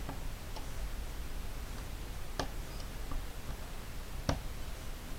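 A few sharp, separate small clicks of a precision screwdriver and tools against a smartphone's plastic frame and screws, over a steady low hum; the loudest come about two and a half and four and a half seconds in.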